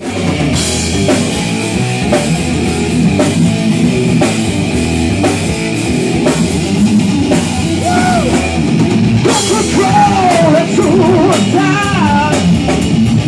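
Live rock band playing loud: electric guitar, bass guitar and drum kit, with a singer's voice coming in after about eight seconds.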